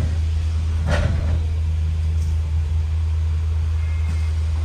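Steady low drone of a double-decker bus's engine and drivetrain, heard from the upper deck, with a short knock about a second in.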